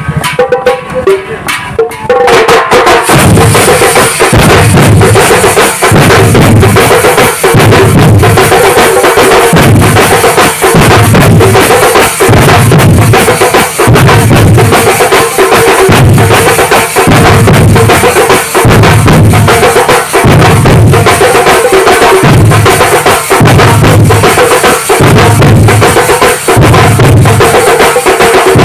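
Loud festival procession music dominated by drums, with a pounding bass beat repeating about once a second and a steady held tone above it. The full, dense sound starts abruptly about two seconds in, after a thinner, choppier opening.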